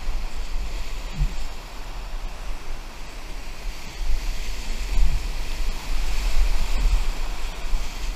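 Whitewater rapids rushing and churning around a stand-up paddleboard, a loud, steady roar of turbulent water. A fluttering low rumble of wind buffeting the microphone runs underneath.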